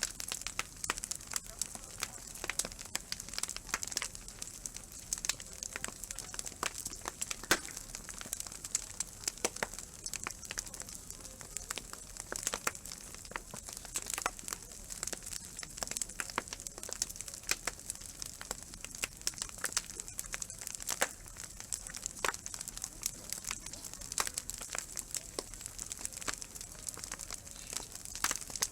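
Wood fire crackling and popping, a dense run of irregular sharp snaps over a steady hiss.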